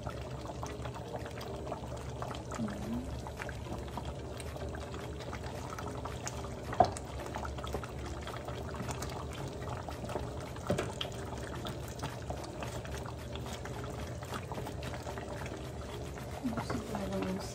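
Stew simmering in a stainless steel stockpot, a steady bubbling with a low hum underneath. A sharp knock comes about seven seconds in and a softer one near eleven seconds, while long beans are added and pushed into the pot.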